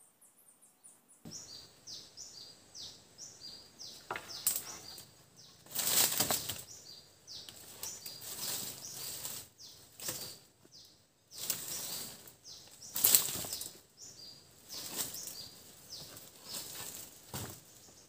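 Rough-sawn wooden planks being handled and shifted in leaf litter: rustling and brief knocks and scrapes, a handful of them loud. Behind it, a steady chorus of short, high, falling chirps several a second, from about a second in.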